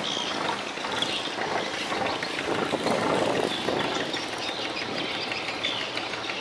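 Komatsu turbo diesel engine of a rice-cargo boat running steadily while the boat is underway.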